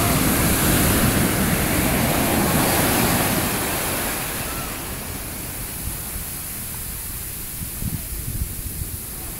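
Ocean surf: a wave breaks and its wash rushes loudly for the first four seconds or so, then the foam hisses more quietly.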